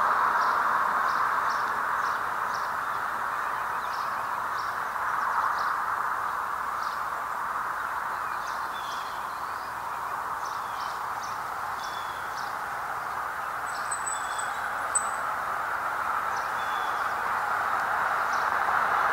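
Small birds chirping: short, high, separate notes scattered irregularly throughout, with a brief thin, very high note about two-thirds of the way in. Beneath them runs a louder, steady background noise.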